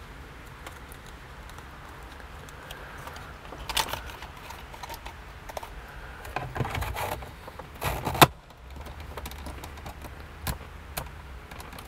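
Plastic dashboard air vent being handled and pressed back into its opening in a 2013 Toyota RAV4's dash: scattered light plastic clicks and knocks, with one sharp snap about eight seconds in as it clips into place.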